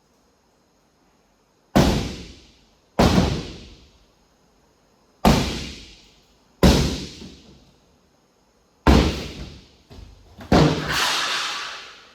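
Heavy blows against a barn wall as an opening is knocked through it: six hard strikes one to two seconds apart, each dying away over about a second.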